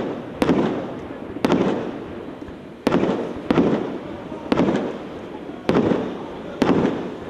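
6-inch water ballet firework shells going off on water: a sharp bang about once a second, seven in all, each trailing off in a rushing, fading spray.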